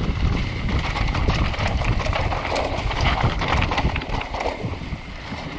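Mountain bike riding fast down a dirt downhill trail: tyres rumbling over packed dirt and dry leaves, with a constant rattle and clatter of the bike over bumps and a heavy low rumble of wind on the microphone.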